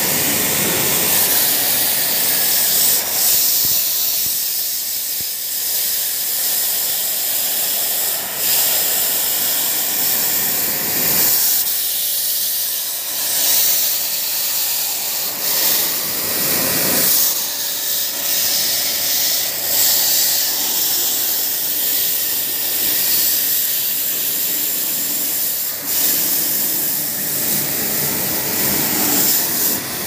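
High-pressure water jet from a pressure washer hissing steadily as it sprays across the condenser coil fins of a VRF outdoor air-conditioning unit, washing the coil clean. The hiss dips and swells as the jet moves over the coil.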